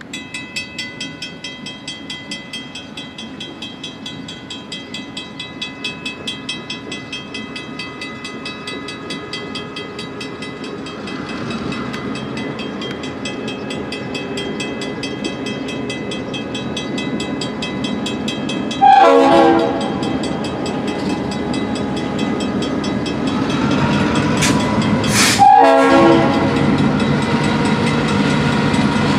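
Railroad crossing's mechanical warning bell starts ringing and keeps up a fast, steady beat as the signals activate, while an approaching freight train led by GP38M-2 diesel locomotives rumbles louder. The locomotive horn sounds once about two-thirds of the way through, then again, longer, near the end.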